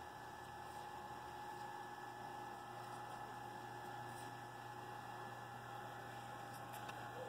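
Faint, steady electric motor hum with a thin whine from a Power Caster PC1 battery-powered trailer dolly, running at an even pace as it slowly pushes a boat trailer.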